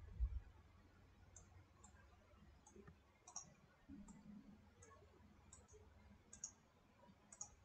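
Faint computer mouse clicks at irregular intervals, some in quick pairs, as faces are picked on screen and a right-click menu is opened. A soft low thump sounds just at the start.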